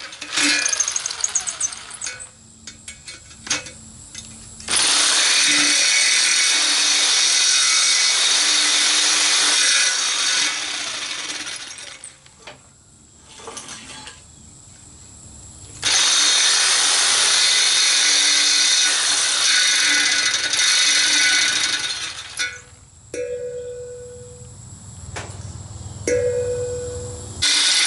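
Jigsaw blade cutting through the steel shell of a propane-tank tongue drum, running in long loud stretches with pauses between cuts. Near the end a cut tongue is tapped twice, each tap giving a short ringing note.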